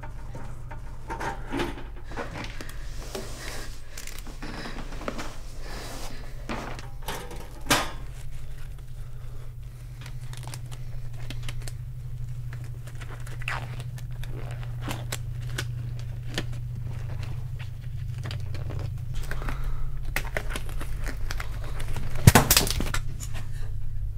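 Rustling, crinkling and clattering of cables and objects being handled on metal shelving, over a steady low hum, with a sharp knock about a third of the way in and a louder clatter near the end.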